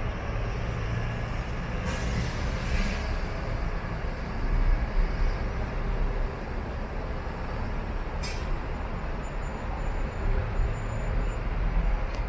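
Steady low rumble of a moving vehicle, with a few short knocks.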